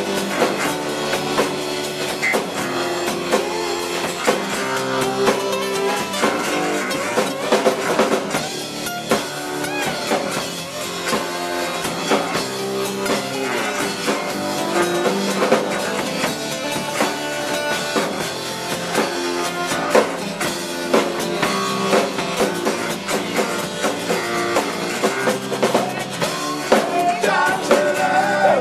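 Live rock band playing an acoustic-style set: electric bass guitar, acoustic guitar and drum kit, with singing near the end.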